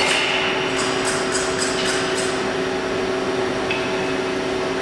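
A CNC deep-hole drilling machine running: a steady mechanical hum with several held tones. A higher whine sounds briefly at the start and again about four seconds in, and a quick run of light ticks comes about a second in.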